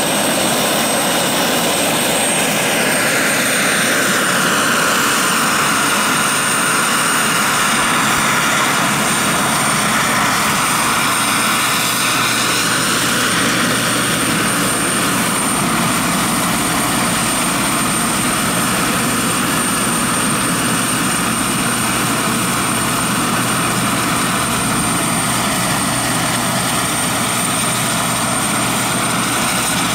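Taurus model gas turbine of a large-scale RC Mil Mi-24 helicopter running at speed: a steady high turbine whine over the rotor noise. The whine climbs slightly in the first couple of seconds and then holds its pitch, while a lower tone sinks in pitch over the first few seconds.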